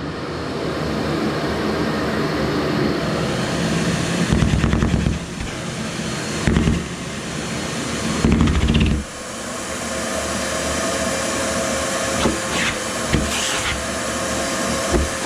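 Vacuum cleaner running steadily as clothing is sucked up, with three louder, rough, pulsing surges in the first half as fabric is drawn against the nozzle, and a few short clicks later on.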